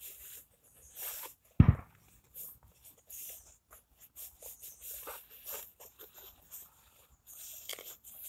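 Rope rustling and scraping in the hands as it is wound round two sticks and pulled tight into a clove hitch, in short irregular bursts. A single loud, deep thump comes about one and a half seconds in.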